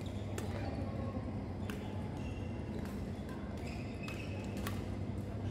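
Badminton rally: rackets hitting the shuttlecock in sharp cracks about every second and a half, with short squeaks of court shoes on the hall floor between the hits, over a steady low hum.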